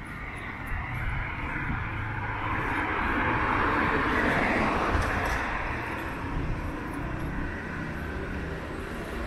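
A car driving past on the street. Its tyre and engine noise swells to a peak about four seconds in and then fades, over a low steady rumble.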